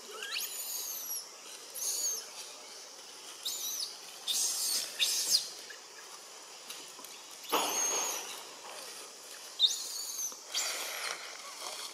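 Baby long-tailed macaque giving repeated high-pitched squeaks that slide up and down in pitch, broken by a few harsher, scratchier squeals.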